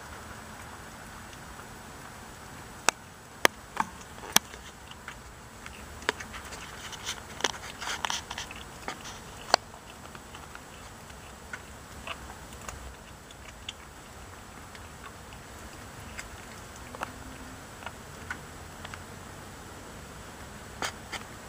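A kitten chewing raw catfish: irregular sharp bites and crunches, busiest in the first half and sparser later.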